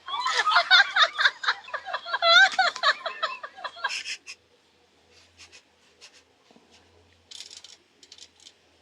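A high-pitched cackling voice for about four seconds, then faint scattered light clicks.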